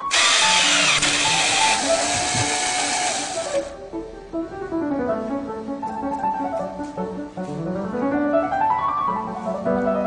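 Background music led by piano. For the first three and a half seconds a loud, steady hissing noise lies over the music, then it cuts off suddenly, leaving the music alone.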